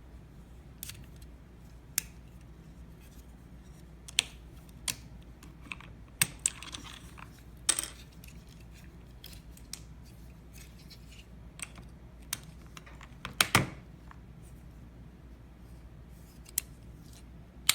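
Irregular sharp clicks and short scrapes of a stainless steel keycap and switch puller working keycaps and switches on a mechanical keyboard, with a longer scraping rattle about two-thirds of the way through.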